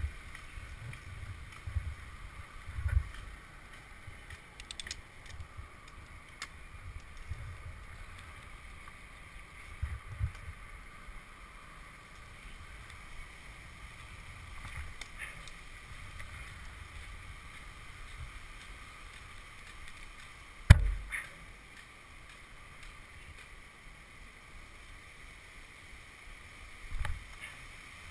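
Wind rumbling on the microphone with scattered low thumps and knocks as a climber on spikes shifts against a poplar trunk; one sharp, loud knock comes about three-quarters of the way through.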